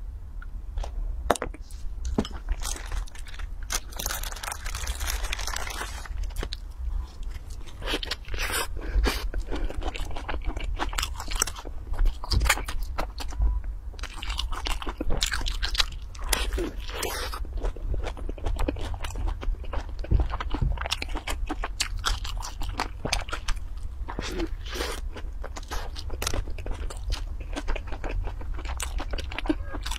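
Close-miked eating: crunchy bites and chewing of a burger topped with fries and mayonnaise, with many sharp mouth clicks. A steady low hum runs underneath.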